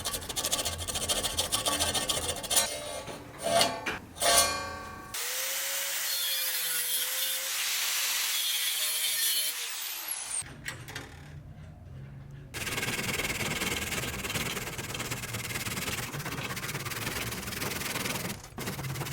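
Tools scraping and rubbing on wood, in a few short passages that change abruptly from one to the next.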